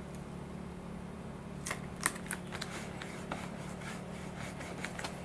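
Pinstripe tape being peeled from its backing and pressed down with fingertips: a run of short crackles and ticks, loudest about two seconds in, over a steady low hum.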